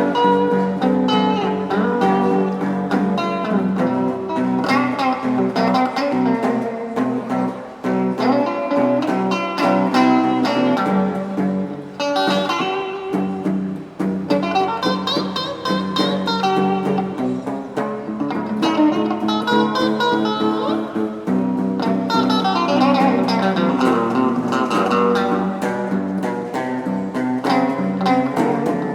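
A guitar being played, a continuous run of plucked notes and chords.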